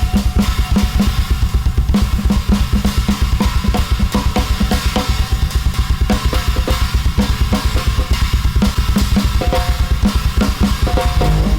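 Drum kit played in a fast, dense free-improvised pattern: bass drum, snare and cymbals struck several times a second without a break.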